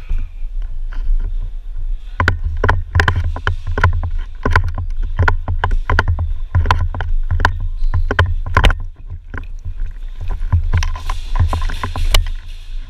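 A run of sharp clicks and knocks, a couple a second and irregular, thickest from about two seconds in to about nine seconds in, over a steady low rumble on the microphone.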